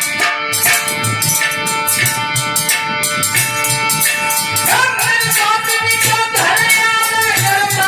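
Devotional bhajan music: a regular drum beat with jingling hand percussion under held melody notes, and a singer's voice coming in just under five seconds in.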